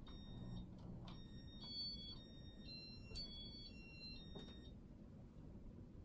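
Electronic beeping from a Casablanca Inteli-Touch ceiling fan's control in demo mode: a run of tones at changing pitches, some two at a time, with a few clicks among them, stopping a little before the end. A low steady hum from the turning fan lies underneath.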